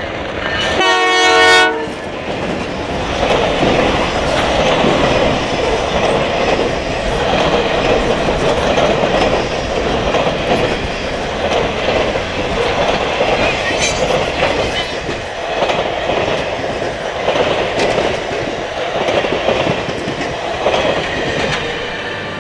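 A Canadian Pacific Holiday Train locomotive sounds one short horn blast about a second in. Then the train passes close by: a steady rumble of wheels on rail that swells and fades in a slow rhythm, with one sharp clank about fourteen seconds in.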